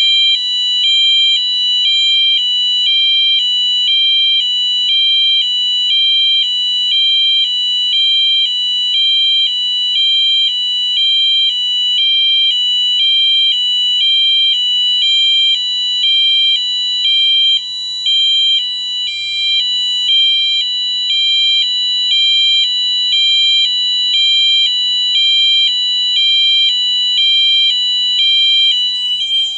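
Wheelock MT multitone fire alarm horn sounding its high-low tone: a loud electronic tone alternating steadily between a higher and a lower pitch.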